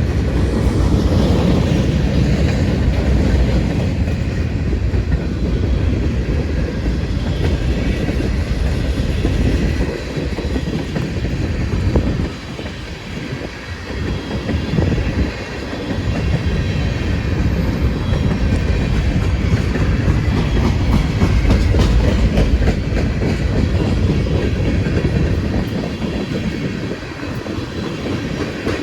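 CSX freight train rolling past at close range: a steady rumble of the cars with wheels clicking over rail joints. The sound eases a little about halfway through, then builds again.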